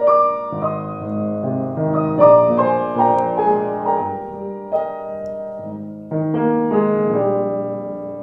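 Restored 1887 Blüthner style VIII grand piano played in the tenor and treble: a slow passage of notes and chords, each ringing on after it is struck, with a louder chord about six seconds in.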